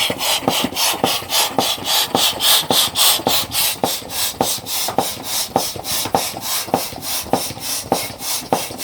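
Bestway Air Hammer manual balloon pump worked fast: an even run of puffs of air, about four a second, each with a light click, as a balloon is inflated.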